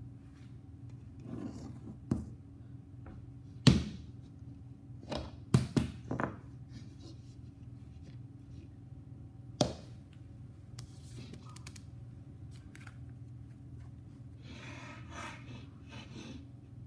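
Stainless steel mixing bowl knocking on a kitchen worktop as it is handled: sharp knocks, the loudest about four seconds in, a quick cluster around five to six seconds and one more near ten seconds. Near the end a plastic dough scraper rasps around inside the bowl.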